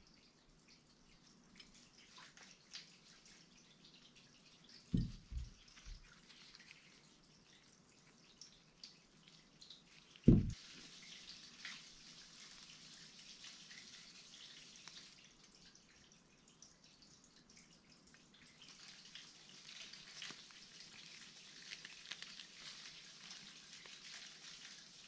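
Gloved hands handling and greasing the parts of a dirt bike's front brake caliper: faint clicks and a soft rubbing hiss, a few light knocks about five seconds in and one sharper knock of metal on the bench about ten seconds in.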